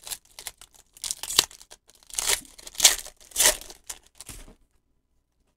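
Foil Pokémon trading-card booster pack wrapper being torn open and crinkled by hand, in a run of rustling bursts that stop about four and a half seconds in.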